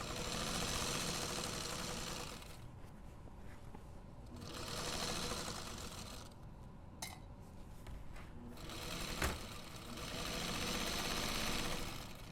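Sewing machine stitching a zipper seam in three short runs, stopping between them, with a couple of sharp clicks in the pauses.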